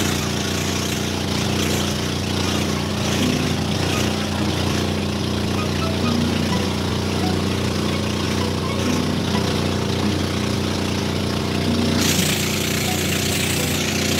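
Engine of a motorized bangka boat running at a steady speed, an even drone. A louder rushing hiss joins about twelve seconds in.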